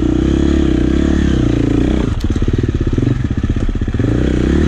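Four-stroke dirt bike engine revved up from idle, dropping back to a pulsing idle about two seconds in, then revved again near the end.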